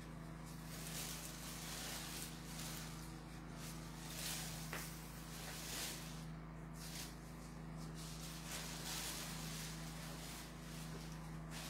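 Steady low electrical hum under a hiss that swells and fades every second or two: room tone with no distinct event.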